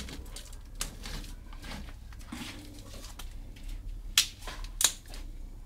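Kitchen knife cutting and slitting the plastic wrapping on a pack of bar soap, the wrapper rustling and crinkling. There are several sharp clicks, the loudest two about four and five seconds in.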